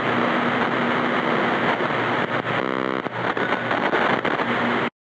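Harsh, steady broadcast static hiss, with a brief buzzing tone about two and a half seconds in, cutting off suddenly near the end: the broadcast signal dropping out.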